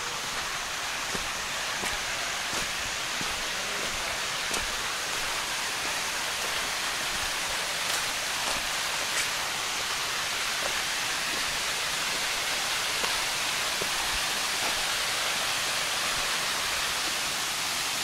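Waterfall's rushing water: a steady, even hiss that grows slightly louder. Faint footsteps on the trail tick in the first half.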